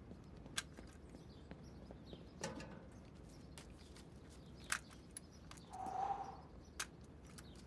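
Quiet background of faint bird chirps and a few soft, scattered clicks, with a short breathy sound about six seconds in.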